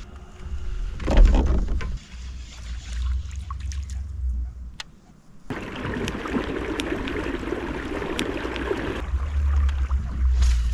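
Water sounds around a fishing kayak: low rumbling at first with a sharp knock about a second in, then a steady rushing, splashing noise for about three and a half seconds, and low rumbling again near the end.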